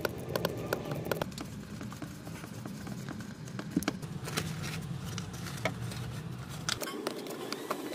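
Irregular clicks and knocks of hand tools and metal parts being handled as a truck's steering column is fitted and bolted in, over a steady low hum that drops away near the end.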